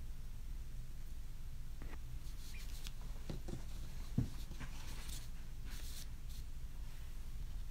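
Faint handling noises: scattered light clicks and rustles, with one soft knock about four seconds in, over a steady low hum.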